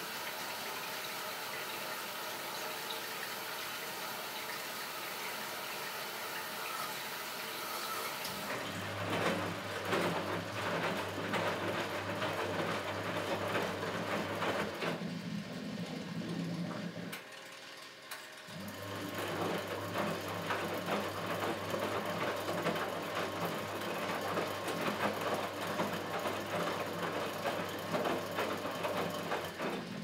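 1964 Miele Automatic 416 washing machine: water hisses steadily into the drum for about eight seconds. Then the drum motor starts with a low hum while the wet laundry sloshes and tumbles. A little past halfway the drum stops for a moment, then turns again.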